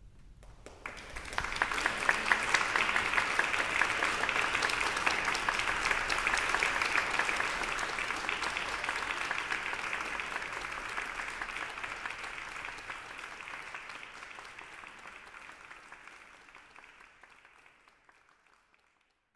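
Audience applauding: the clapping starts about a second in, is strongest for the next several seconds, then slowly tapers and dies away near the end.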